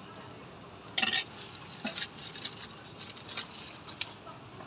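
Metal serving utensils clinking: one sharp clatter about a second in, then a few lighter clicks and taps.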